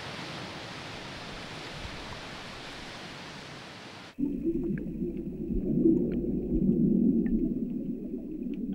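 Steady hiss of open sea water at the surface. About four seconds in it cuts suddenly to a muffled underwater rumble with a few faint clicks.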